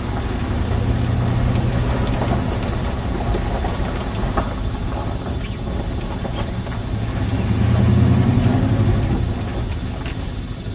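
Engine and drivetrain of a full-size GMC Yukon-type SUV heard from inside the cabin while driving over rough grassy ground: a low running rumble that swells under throttle about a second in and again near the end, with scattered knocks and rattles from the cab.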